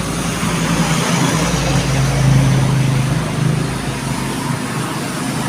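A bus's deep ship-style air horn (klakson kapal) sounding in one long, low, steady blast, loudest about two seconds in and fading near the end.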